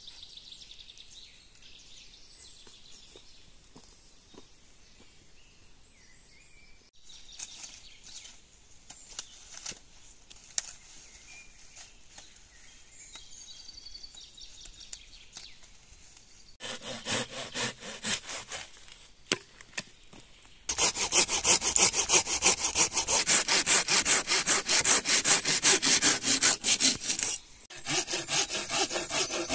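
Hand saw cutting through a wooden branch in quick, even strokes. The sawing starts a little past halfway, pauses briefly, then runs louder and steady, with a short break near the end. Before it come a few light knocks of branches being handled.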